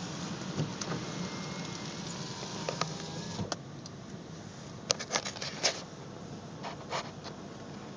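Steady rush of wind and surf heard from a vehicle, with scattered sharp clicks and knocks of handling close to the microphone. The rushing drops off a little about three and a half seconds in.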